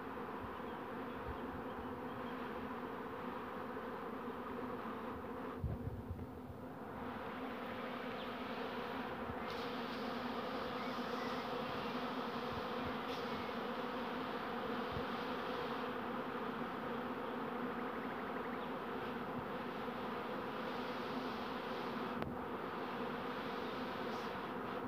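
Honeybees buzzing in a steady drone as large numbers of them fly around the hives of an apiary. A brief bump about six seconds in.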